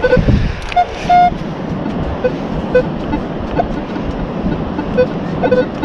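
Metal detector giving short, irregular beeps that jump between a low tone and a higher one as it is swept over a target. The jumpy tones are the erratic signal of a deep coin.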